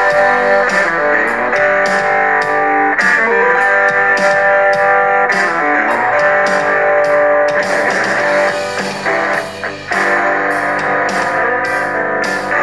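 Instrumental guitar rock music with steady drum hits, played through a tablet's built-in speakers for a speaker test.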